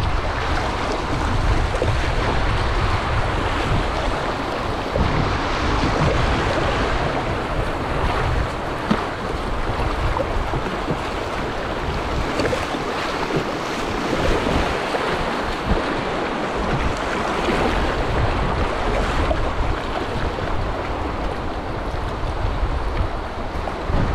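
Whitewater of a Class II river rapid rushing and splashing around a kayak, with wind buffeting the microphone in a gusty low rumble that eases off in the middle.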